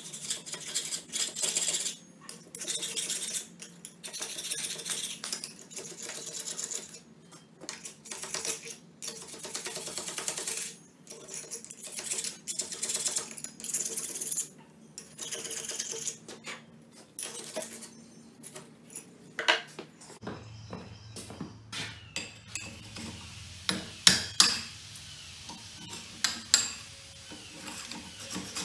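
Steel file rasping up and down inside the hardy hole of a cast steel anvil, a run of rough scraping strokes that clean off the crusty casting. In the last third a few sharp metal strikes ring out as a hammer drives a chisel into the hole.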